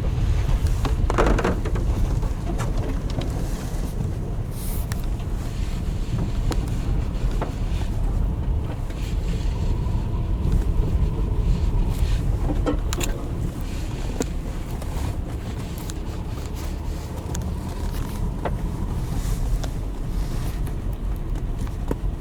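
Steady low rumble of a car driving, road and engine noise as heard from inside, with a few faint clicks.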